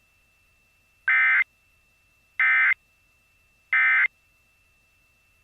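Emergency Alert System End-of-Message signal: three short, identical bursts of warbling digital data tone, about a second and a bit apart. They mark the end of the alert.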